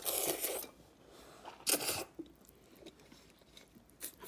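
A child slurping up a mouthful of noodles with chopsticks: a long slurp at the start, a shorter one a little under two seconds in, then quieter mouth sounds.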